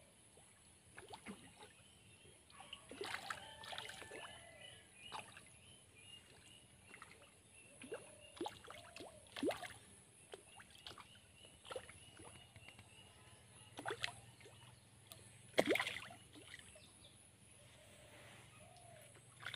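Fish breaking the surface of a fishpond: scattered small splashes, the loudest about three-quarters of the way through.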